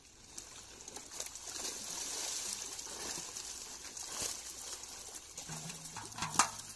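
Water trickling and splashing, with one sharp impact about six seconds in.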